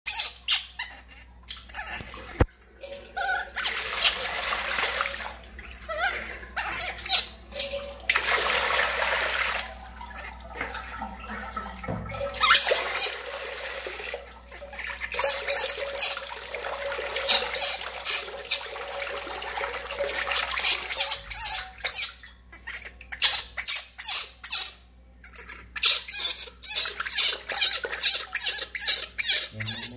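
Water splashing and pouring in a steel basin as a baby monkey is bathed, with runs of short, sharp cries from the frightened infant in the second half.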